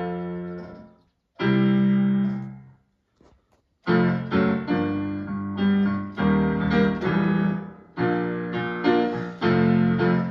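Piano-style keyboard playing the introduction to a gospel song: two long held chords, a brief pause, then chords struck in a steady rhythm from about four seconds in.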